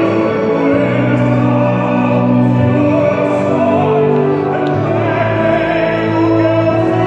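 A tenor singing in an operatic style with a mixed choir, accompanied by violins and an electric keyboard, in sustained, slow-moving phrases.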